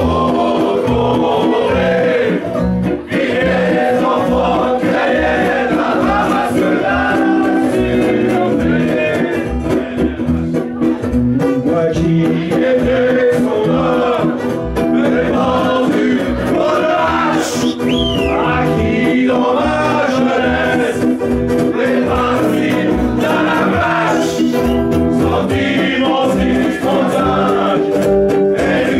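Live band playing, with strummed guitars and several men singing together loudly in a group chorus.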